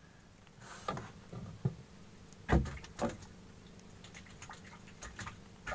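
A few scattered soft knocks and taps from handling on a wooden outrigger boat, the loudest a dull thump about two and a half seconds in, with faint ticks near the end.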